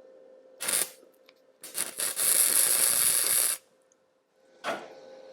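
Steel being arc-welded: a short tack, then a sustained crackling, sputtering weld of about two seconds that cuts off abruptly, then another brief tack near the end.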